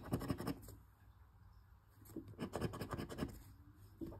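Scratch-off lottery ticket being scratched, in two runs of quick rasping strokes with a short pause between them.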